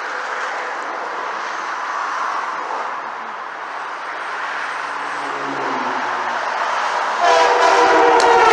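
Heavy truck passing with a steady rush of road and engine noise. About seven seconds in, a loud truck-mounted train horn blows, several tones sounding together as a chord.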